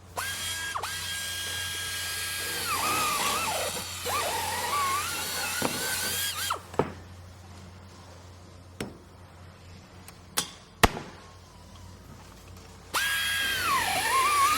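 Electric power drill running with a high whine, its pitch dipping and wobbling as the bit bites under load. It stops after about six and a half seconds, a few sharp knocks and clicks follow, and the drill starts again near the end.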